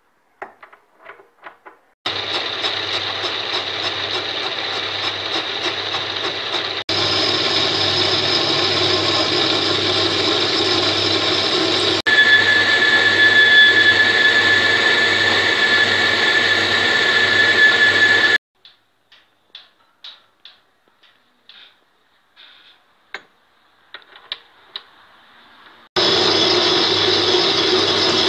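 Homemade metal lathe running with a metal ring spinning in its chuck while a boring tool cuts the inside of the ring; for several seconds in the middle a steady high ringing tone runs over the cut. The running cuts off suddenly, and a string of short metal clicks and knocks follows before the lathe is running again near the end.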